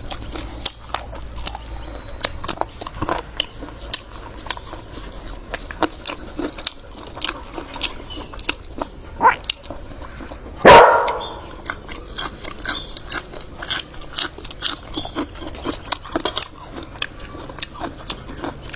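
A dog barks once, loud and short, about ten seconds in, with a fainter yelp a little before it. Small clicks and taps of eating and utensils go on throughout.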